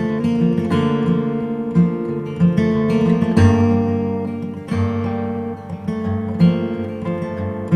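Background music: acoustic guitar strumming chords, with the chords changing every second or so.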